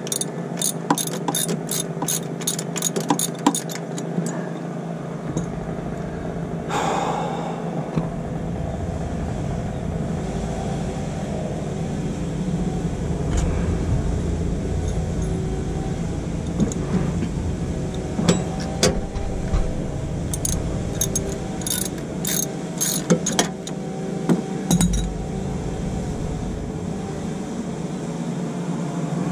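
Hand tools clicking and clinking against metal while fittings are worked loose in a car's engine bay: a run of quick clicks at the start, a single louder knock about seven seconds in, and another run of clicks about two-thirds of the way through, over a steady hum.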